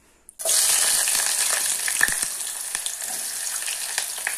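Sliced onions and whole spices dropped into hot mustard oil in a pot: a loud sizzle that starts suddenly about half a second in and slowly eases, with scattered crackles.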